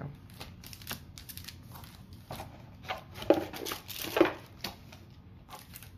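Foil-wrapped trading-card booster packs crinkling and rustling as they are handled and moved around, in a string of short crackles that are loudest a little after three and four seconds in.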